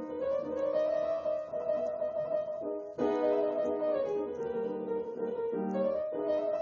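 Steinway grand piano played with its lid closed, a Spanish-flavoured improvisation of sustained chords and melody notes. A fresh, louder chord is struck about halfway through.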